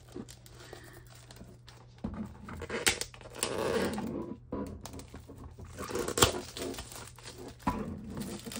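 Clear plastic shrink-wrap crinkling and tearing as it is peeled off a cardboard box, with a few sharp taps from the box being handled. The crinkling is loudest a few seconds in.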